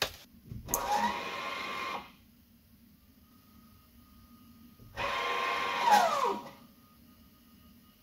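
A small electric motor whining twice for about a second and a half each time. The first run, just after the start, rises slightly in pitch. The second, about five seconds in, falls steadily in pitch as if slowing under load.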